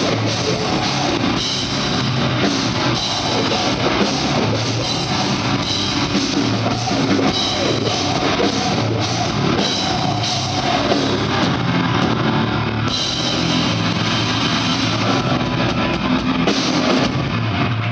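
Grindcore band playing live through a loud PA: distorted electric guitar and fast drum kit.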